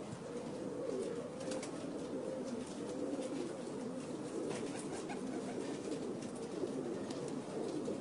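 Many birds calling at once: a continuous low warbling chatter, with a few short, sharp high calls through it.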